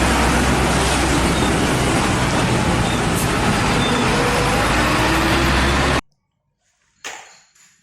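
Heavy truck engine running steadily with a low rumble, a sound effect that starts abruptly and cuts off suddenly about six seconds in.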